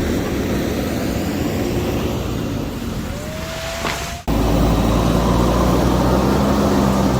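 Heavy-equipment engine running under load, with a short rising whine about three seconds in. About four seconds in it cuts abruptly to a steadier, deeper engine drone.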